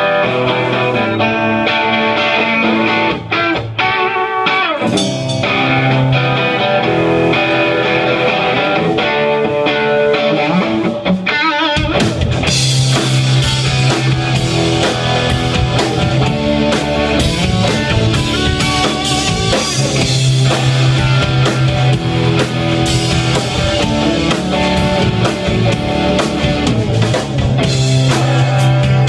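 Live rock band playing electric guitar, bass guitar and drum kit. The first twelve seconds or so are mostly guitar and bass, then the full drum kit comes in with a steady beat.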